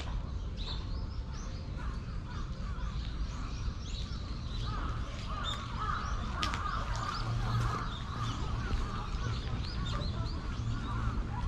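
Many birds calling at once, short overlapping chirps and caws, densest about halfway through, over a steady low outdoor rumble.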